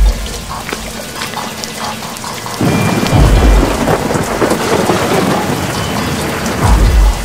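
Heavy rain with three deep thunder rumbles: one at the start, one about three seconds in and one near the end. The rain grows louder about two and a half seconds in.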